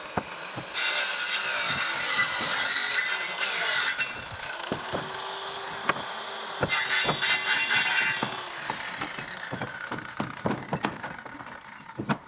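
A brick scraped back and forth against wooden shuttering planks, a loud rasping rub lasting about four seconds and then again for a second and a half after a short pause. Short knocks of bricks being set down on the boards come in between and after.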